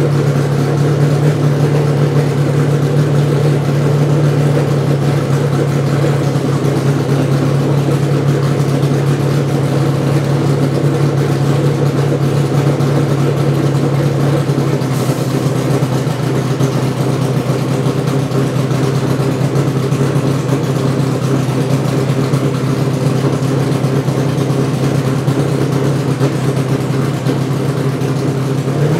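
Chevrolet Monza IMSA race car's 5.7-litre Chevrolet V8, running through open tube headers, idling steadily.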